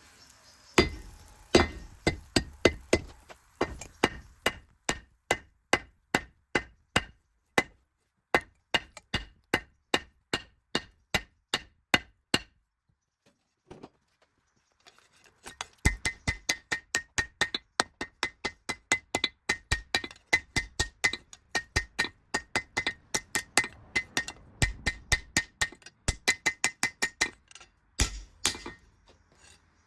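Hammer striking steel on an anvil while forging a knife blade from a spade drill bit, about three blows a second with a metallic ring. The blows stop for a few seconds about halfway through, then start again.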